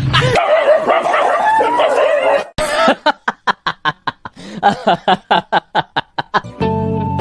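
A dog yelping with a wavering cry for about two seconds, then after a cut a rapid, even run of laughter, about five bursts a second, lasting about three and a half seconds. Music comes in near the end.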